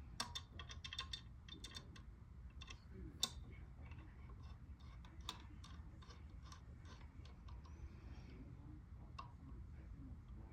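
Light, irregular clicking and tapping of small hardware being handled while ceiling fan blades are screwed onto the fan, the sharpest clicks about a quarter second and about three seconds in.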